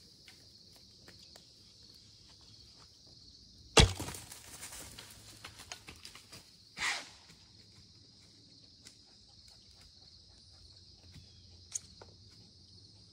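Recurve bow shot about four seconds in: one sharp, loud thump of the string and the arrow's hit. It is followed by a couple of seconds of a deer scrambling off through dry leaves and brush, then one more short crash of leaves. Crickets and other insects trill steadily throughout.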